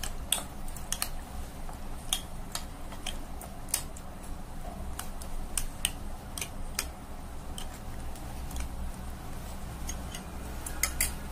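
Metal spoon stirring chicken pieces and raw egg in a glass bowl, clicking irregularly against the glass about once or twice a second. A low steady hum runs underneath.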